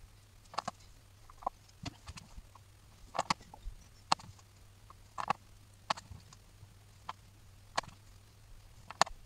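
Sparse, irregular light clicks and taps of small accordion reed plates being handled and set down on a cutting mat while their valves are fitted.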